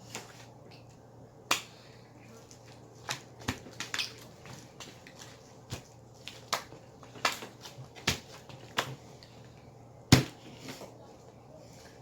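Slime being squished and pulled by hand, giving a string of irregular sharp pops and clicks, the loudest about ten seconds in.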